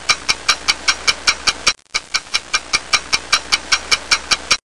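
Clock ticking sound effect, fast and even at about five ticks a second, with a brief break a little under two seconds in; it stops abruptly near the end.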